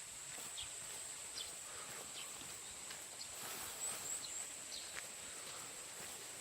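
Quiet countryside ambience: a steady high-pitched hum, scattered short chirps with three quick rising ones around the middle, and faint light taps.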